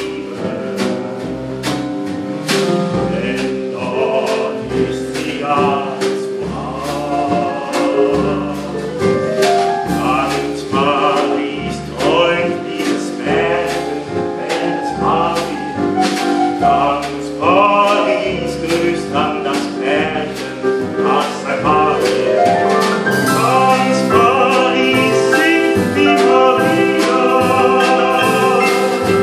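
Live jazz combo playing: Nord stage piano, double bass and drum kit with regular cymbal strokes, under a male voice singing a wavering line with no clear words. It grows louder toward the end.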